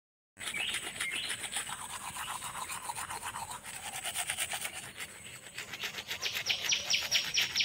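Manual toothbrush scrubbing teeth in quick back-and-forth strokes, a rhythmic bristly rasp that grows louder and more distinct near the end.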